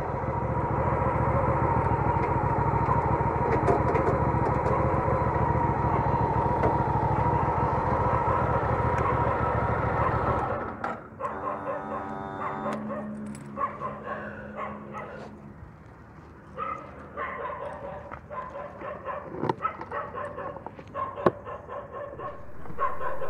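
Cruiser motorcycle engine running steadily with a low even pulse as the bike rolls in, then switched off about ten seconds in. Afterwards a drawn-out whining tone and scattered small knocks.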